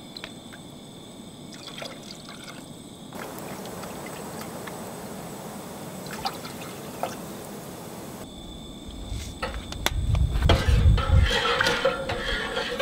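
Liquid being poured into a cooking pot (vegetable broth and coconut milk going in with rice), with a few light knocks of containers. The handling gets louder in the last few seconds.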